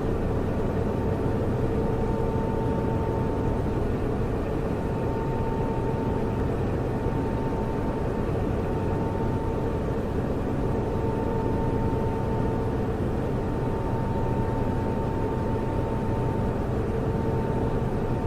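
Server noise: the steady whir of cooling fans with a constant hum and a couple of faint steady whining tones, unchanging throughout.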